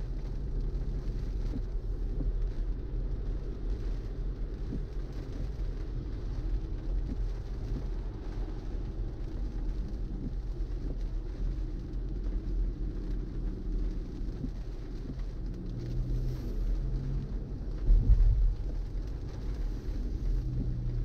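Steady low road and tyre rumble of a BMW i4 M50 electric car on the move, with a short loud thump about 18 seconds in.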